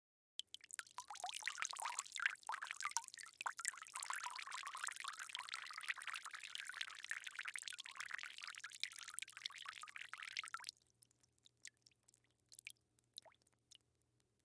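Water pouring or splashing as a dense crackling rush for about ten seconds, which cuts off suddenly and leaves a few faint scattered drips or clicks.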